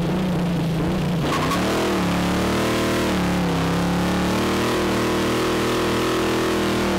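First-generation Chevrolet Corvette's V8 held at high revs in a burnout, with the rear tires spinning. The pitch climbs a little about a second and a half in, dips briefly around the middle, then holds steady.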